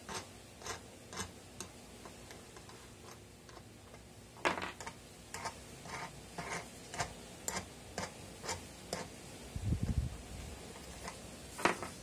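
Wing nuts being unscrewed from the threaded studs of a metal vulcanizing mold frame: a run of light metallic clicks, about two a second. There are a few louder clicks about four and a half seconds in and near the end, and a dull thump shortly before the end.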